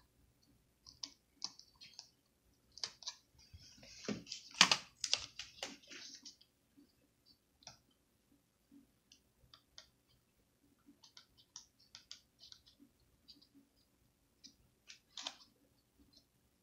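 Scattered small plastic clicks and taps from hands working the thin display cable plug into the back of a replacement laptop screen, with a louder run of rattling clicks about four to six seconds in.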